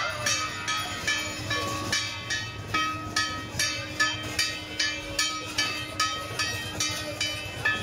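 Procession band music: evenly repeated metallic percussion strikes about twice a second, each ringing briefly, over a held low note.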